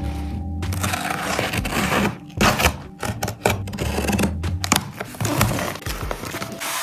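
Packaging being handled up close: rustling and crinkling with many sharp clicks and taps, over soft background music with low sustained notes.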